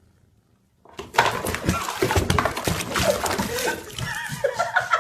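A loud commotion of animal cries mixed with people's voices, with many sharp clatters, starting suddenly about a second in.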